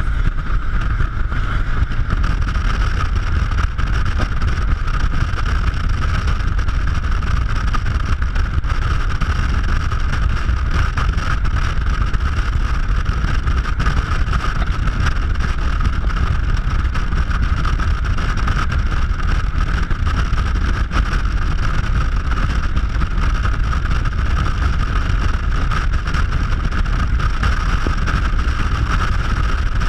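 Steady rush of wind over a camera mounted outside a 1974 Chevrolet Opala, with the car's low rumble at highway cruising speed; the sound is even throughout, with no changes in pace.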